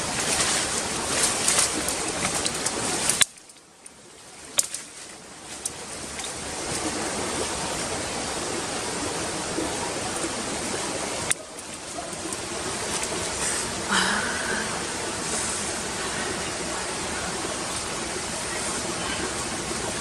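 Steady rushing of flowing water, like a forest stream, with a few sharp clicks. It cuts out about three seconds in and builds back up over the next few seconds.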